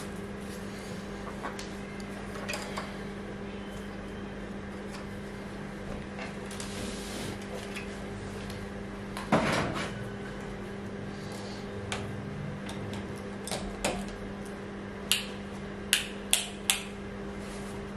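Metal clanks and knocks from handling an opened HP Z800 workstation's steel case and parts: a loud knock about nine seconds in and a quick run of sharp clinks near the end, over a steady low hum.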